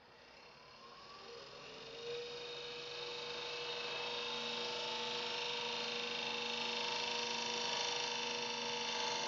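A gouge cutting a spinning ash blank on a wood lathe: a steady hiss of shavings with a humming tone, growing louder over the first few seconds as the cut takes hold.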